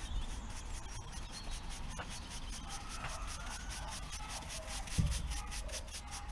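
A hand brush sweeping loose kiln-dried sand off a painted narrowboat gunwale, in quick scratchy strokes several a second. A dull thump comes about five seconds in.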